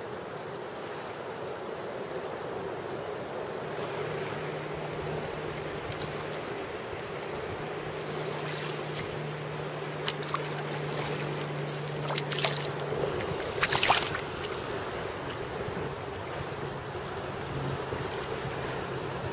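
Shallow sea water washing with a steady hiss, with a hooked sea bass splashing at the surface a few times in the middle, the loudest splash about two-thirds of the way through. A low steady hum comes in a few seconds in and stops shortly after the splashes.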